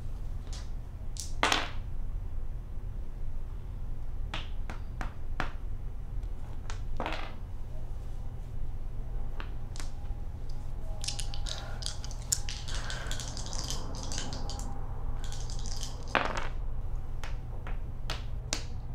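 Dice rattling in a cupped hand and clicking onto a cardboard board-game board, with plastic pawns tapped down on it. There are scattered single clicks, a longer stretch of rattling about two-thirds of the way in, and a steady low hum underneath.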